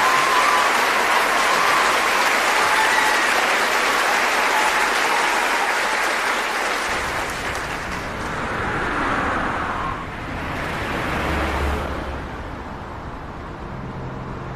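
Audience applauding, fading after about seven seconds into a low steady rumble, with music starting near the end.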